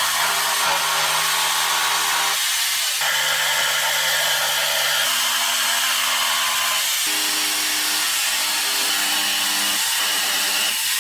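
Electric jigsaw running steadily with an even whirring motor noise, under background music of slow held notes.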